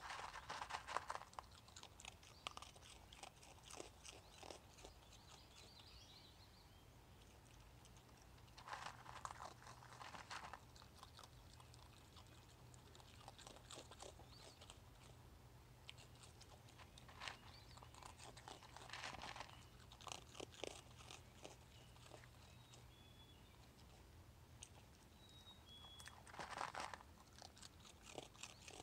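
Raccoon chewing and crunching food, in a few short bouts of crunching separated by quiet pauses of several seconds.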